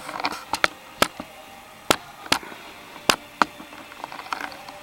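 A run of irregular sharp clicks and taps, about a dozen, with the sharpest ones around the middle.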